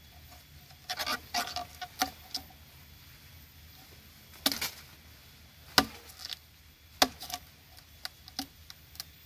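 Machete blade chopping and prying into a standing bamboo culm. It makes a dozen or so irregular, sharp knocks of steel on hard bamboo, spaced from a fraction of a second to a second or more apart.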